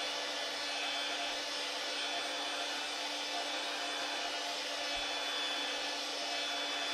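Electric heat gun running steadily: an even blower hiss with a steady hum from its fan motor.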